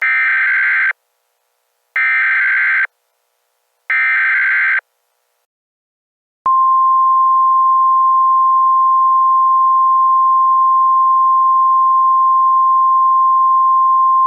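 Emergency Alert System SAME header: three one-second bursts of buzzy digital data tones, about two seconds apart. About six and a half seconds in, a single steady attention tone begins and holds.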